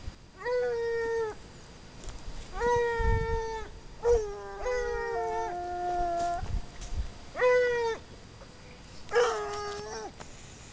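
Ariégeois scent hounds baying on a hare's trail: about six long, drawn-out bays, with two hounds giving voice at once around the middle.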